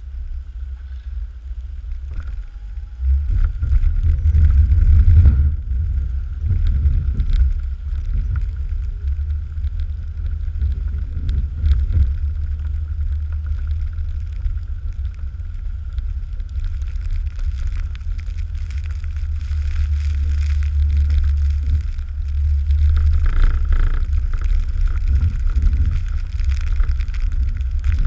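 Plow truck driving with a back blade in snow, heard from a microphone mounted outside on the truck: a steady low rumble with wind buffeting the microphone, getting louder about three seconds in, and a faint steady high tone over it.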